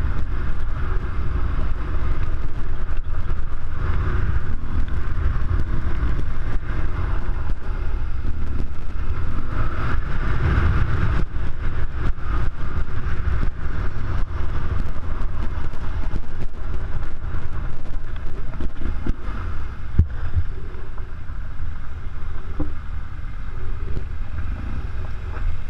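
BMW R1200GS Adventure's boxer-twin engine running as the bike rides over a loose gravel track, with occasional knocks. The sound eases somewhat near the end as the bike slows toward the other riders.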